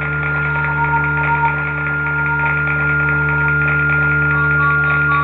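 Live drone music from electric guitar, keyboard and electronics: a steady low drone with several held tones and a high sustained tone over a hissing texture, with a few faint higher notes coming and going.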